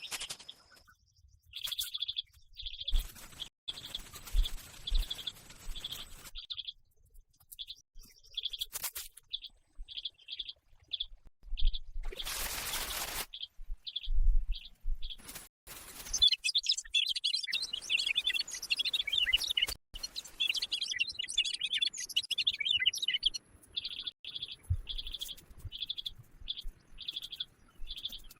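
Birds chirping in rainforest: one short call repeated over and over, about one or two a second, with a dense burst of overlapping chirps in the middle stretch. Occasional low thumps and a brief rushing hiss about twelve seconds in are heard alongside.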